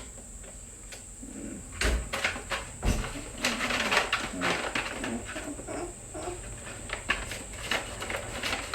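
A plastic pasta packet being cut open and handled: a couple of knocks about two seconds in, then several seconds of irregular crackling and rustling.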